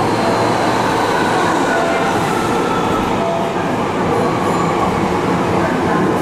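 Steady noise inside a Hankyu 1300 series train car in a subway station, with the doors closing partway through.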